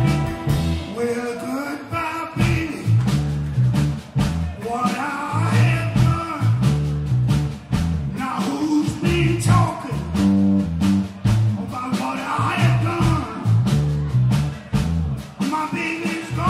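Blues-rock band playing live on electric guitars, bass guitar and drums, with a man singing lead in phrases over the band.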